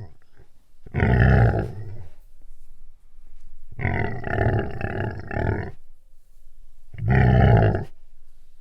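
A large animal growling three times: a growl about a second in, a longer pulsing growl of about two seconds in the middle, and a shorter one near the end.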